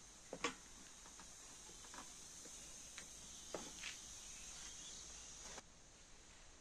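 Faint background hiss with a few soft clicks and knocks; the hiss cuts off suddenly near the end.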